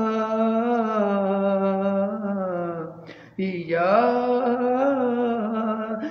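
A man singing a ghazal solo, drawing out a long held note with slow wavering in pitch, taking a short breath about three seconds in, then holding a second long note.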